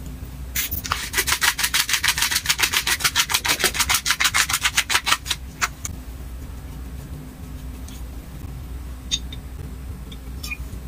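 Ground white pepper shaken from a shaker jar: a fast, even rattle of about eight shakes a second for around four and a half seconds, stopping abruptly. A few light clicks follow near the end.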